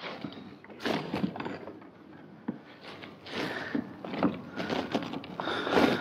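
Irregular knocks, scrapes and rustling of a hooked fish's line being pulled in by hand on a kayak, with a sharp click about halfway and the loudest handling just before the end.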